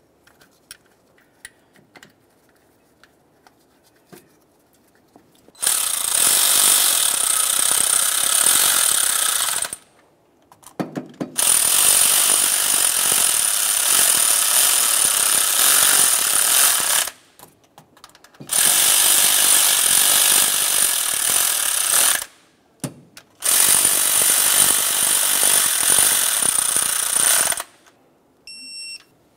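An air ratchet running down the throttle body's four mounting bolts in four long bursts of several seconds each, after some light clicks of the bolts being started by hand. Near the end come a few short beeps from a digital torque wrench as the bolts reach 200 inch-pounds.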